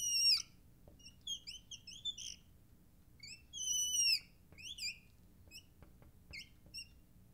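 Marker squeaking on the glass of a lightboard as a shape is drawn: a run of high-pitched squeaks, a few longer ones sliding down in pitch (right at the start and about four seconds in) among many short chirps.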